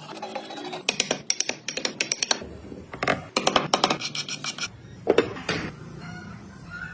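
Short bursts of rapid clicking and scraping from hand-tool work, stopping and starting several times.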